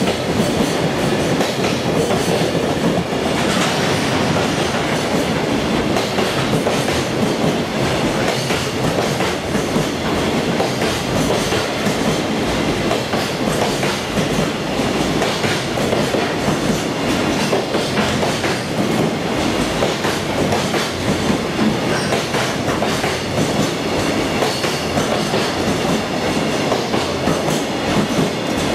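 Container wagons of a freight train rolling past steadily, their wheels clicking over the rail joints in a continuous clickety-clack.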